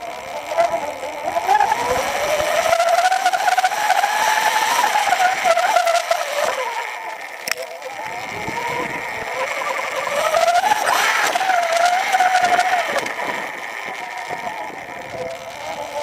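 Sur-ron Light Bee electric dirt bike riding with a Carbon Gates belt drive: the electric motor and drivetrain whine, rising and falling in pitch twice as the bike speeds up and slows, over a rushing noise, with one sharp click about halfway through.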